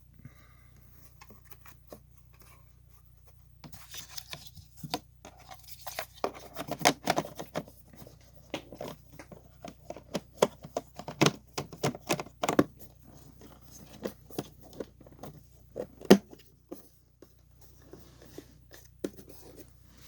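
Hands handling plastic parts inside a portable inverter generator: a string of clicks, knocks and scrapes, sparse at first and busiest in the middle, with one sharp knock, the loudest, late on.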